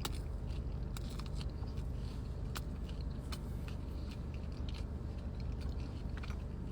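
A person chewing a large mouthful of burger close to the microphone, with scattered soft wet mouth clicks, over a steady low hum.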